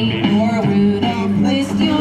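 Music with singing: a wavering vocal line over steady held bass notes.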